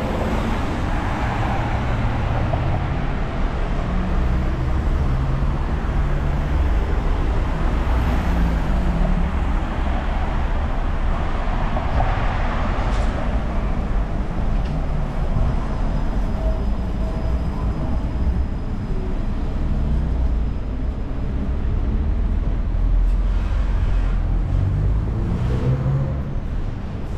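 Steady city road traffic: cars and other vehicles driving past on the street alongside, as a continuous low rumble that swells and fades as they pass.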